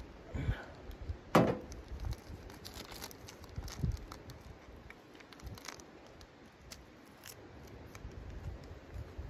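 A ceramic mug set down on a steel stovetop with a sharp knock, among a few lighter knocks, then rustling, crinkling and small ticks as a small packet is handled.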